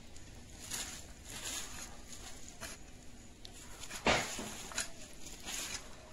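A long-handled garden tool raking and dragging through a heap of shredded-leaf compost as it is turned: a rustling scrape with each stroke, about one a second, the strongest a sudden hit about four seconds in.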